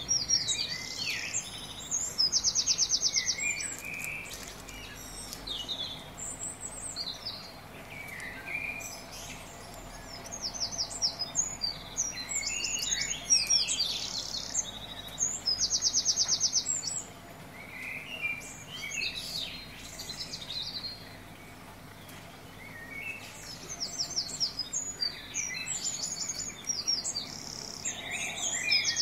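Songbirds chirping and singing: short whistled notes and sweeps with fast trills, coming in bursts throughout.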